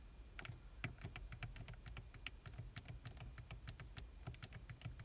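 A quick, irregular run of button clicks, several a second, from the '2' preset button on a Mitsubishi Outlander XL's factory head unit being pressed over and over to step the clock's minutes forward.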